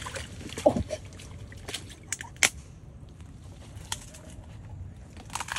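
An American alligator biting down on a smartphone, its jaws cracking and crunching the phone in sharp, irregular snaps, the loudest about two-thirds of a second in.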